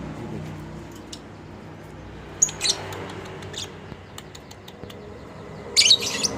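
Lovebirds giving short, sharp, high chirps: a few scattered ones partway in, then a louder quick burst near the end, over a steady low hum.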